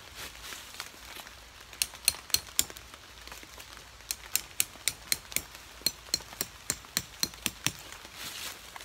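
A tent stake being hammered into the ground: sharp knocks at about three a second, in a short run of four and then a longer run. Light rain patter underneath.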